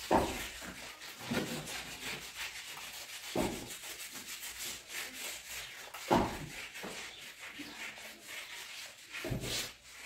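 Close-miked eating: fingers mixing and scooping rice and egg curry on steel plates, with mouth sounds of chewing. Sharper, louder sounds stand out about every three seconds.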